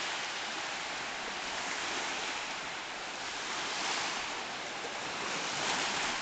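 Sea surf washing in on a slightly rough sea: a steady rush of breaking waves that swells and eases slowly every second or two.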